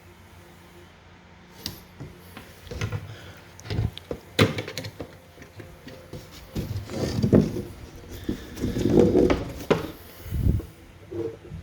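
Wood being handled: irregular knocks, taps and short scrapes.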